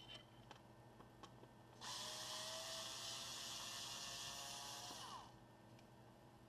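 Small electric screwdriver motor whirring for about three and a half seconds, starting suddenly, then winding down at the end, as it drives a screw on a laptop's case.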